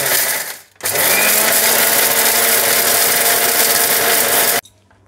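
Electric mixer grinder dry-grinding roasted whole spices in its jar. A short run stops under a second in. Then the motor restarts and spins up, runs steadily for about four seconds, and cuts off suddenly near the end.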